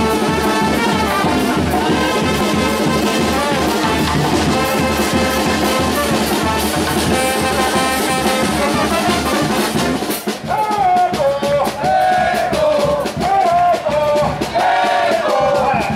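Charanga street band playing: trombones, trumpets and sousaphone over a bass drum with a cymbal and a snare drum keeping a steady beat. About ten seconds in the drums stop and a single wavering melodic line carries on.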